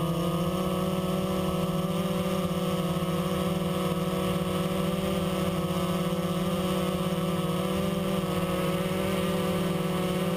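Blade 350QX quadcopter's brushless motors and propellers running at a steady hover, heard close up from a GoPro mounted on the drone: a steady buzzing drone whine.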